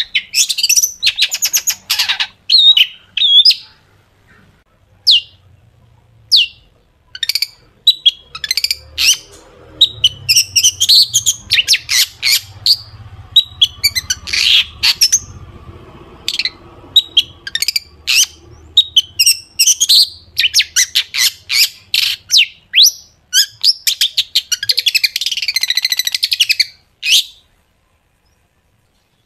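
Long-tailed shrike singing in rapid bursts of sharp, harsh notes and fast chatter, the piercing 'shot' phrases that shrike keepers use to provoke a caged bird into singing. The song stops about two seconds before the end.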